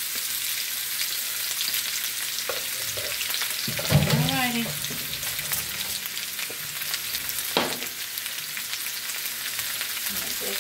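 Seasoned vegetables frying in hot sesame oil in a pan: a steady sizzling hiss. About four seconds in there is a brief louder pitched sound, and a single knock comes near eight seconds.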